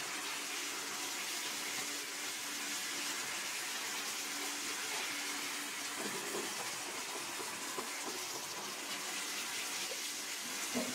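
Spicy Korean-style sauce with fried garlic sizzling steadily in a hot pan, a wooden spoon stirring through it now and then.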